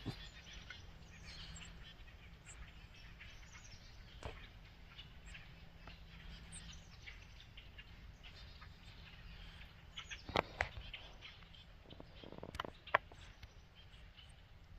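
Small birds chirping faintly off and on, with a few sharp clicks in the second half.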